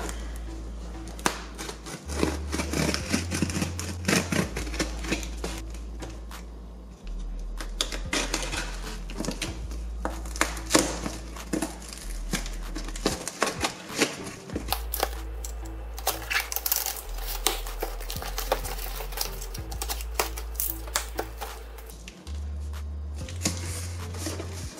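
Background music with a stepping bass line, over the scratching and clicking of a utility knife slicing packing tape on a cardboard box, and the cardboard flaps being pulled open.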